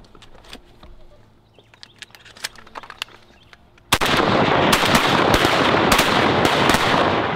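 Shotguns firing a rapid volley of about eight shots that starts suddenly about four seconds in, the blasts running together into continuous loud noise before fading at the end. Only faint scattered clicks come before it.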